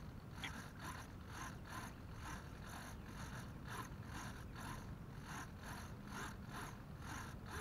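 Small RC hobby servos whirring faintly in short, evenly spaced bursts, about two a second, as they respond to the transmitter's commands, a sign that the receivers are still holding the radio link during a range test.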